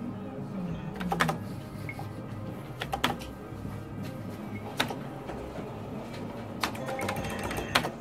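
Merkur slot machine played spin after spin: a sharp click from the start button roughly every two seconds, over the machine's steady electronic game sounds.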